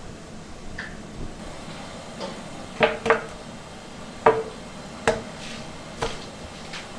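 About five sharp knocks with a short metallic ring, from a steel cleaver and a large aluminium pot as raw chicken is cut and handled. A close pair comes about three seconds in, then single knocks about a second apart.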